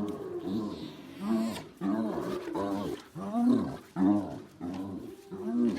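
Spotted hyena giggling: a run of short pitched whoops that rise and fall in pitch, about two a second.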